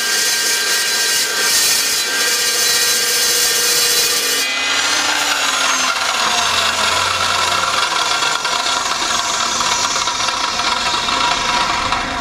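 Evolution EVOSAW380 cold saw's carbide-tipped blade cutting through thick-walled steel pipe with a loud, high-pitched screech. About four and a half seconds in the cut ends and the saw runs on without load, with a duller, lower sound until the end.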